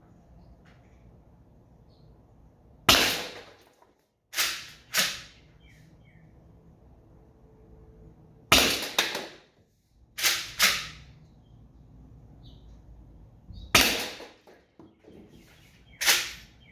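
Modded Umarex HDX .68-calibre launcher firing aluminum balls at a rutabaga: a series of sharp cracks with short ringing tails, in bursts of one or two about half a second apart, some eight in all.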